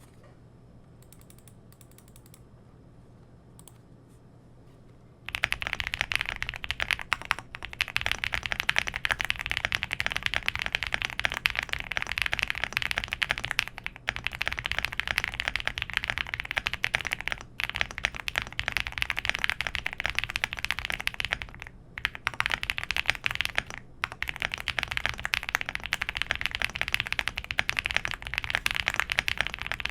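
Fast, continuous typing on a Cidoo V75 Plus mechanical keyboard with stock Gateron Quinn tactile switches, a PC plate, full foam and PBT keycaps. The typing starts about five seconds in, after a quiet stretch, and stops briefly a few times.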